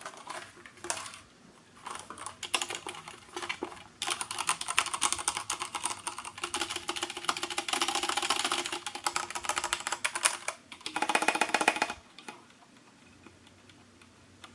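Typing on an Akko 9009 mechanical keyboard with Cherry MX Brown switches. A few scattered keystrokes come first, then a fast run of key clacks from about four seconds in that stops about two seconds before the end.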